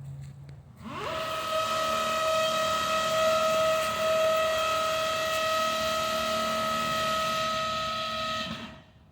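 A long, loud whistle blast with a hiss. Its pitch rises quickly to a steady note about a second in, holds for about eight seconds, and cuts off near the end.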